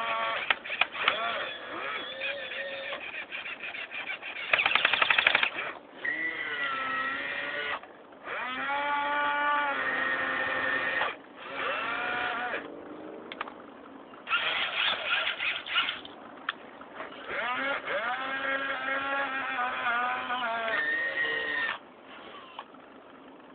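RC excavator's electric motors whining in bursts of a few seconds as it moves, the pitch rising and falling with each movement, with rattling gear clicks.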